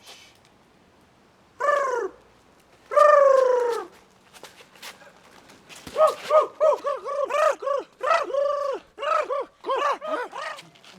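A large bird squawking: two long cries near the start, then a fast run of short rising-and-falling calls through the second half.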